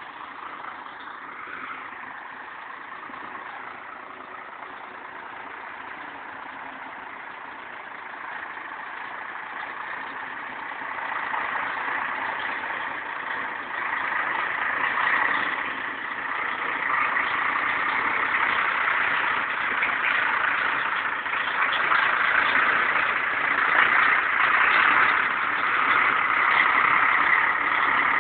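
Heavy-haul truck tractor's diesel engine running as it pulls a lowbed trailer loaded with a large tank. It grows steadily louder from about ten seconds in and is loudest near the end as the truck draws close.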